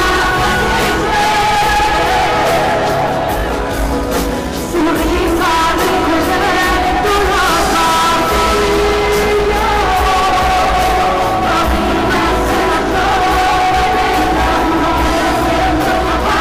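A band playing a song with singing, loud and continuous, with a brief dip in loudness about four seconds in.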